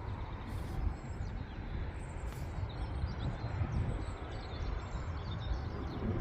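Small birds chirping repeatedly over a steady low rumble; the chirps start about two and a half seconds in.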